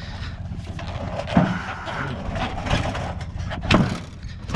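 Steady low rumble of an idling vehicle engine, with a few short knocks and scuffs of handling about a second in, near the middle and near the end.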